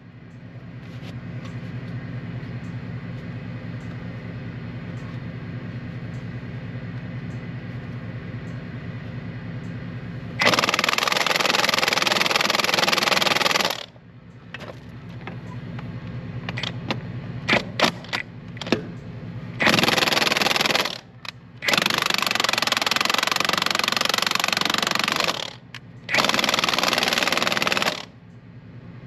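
Cordless impact wrench driving the pusher bolts on a tractor's rear wheel hub to break the hub's wedge loose. A quieter steady running for the first ten seconds, then loud hammering in long bursts of a few seconds each, with short pauses between.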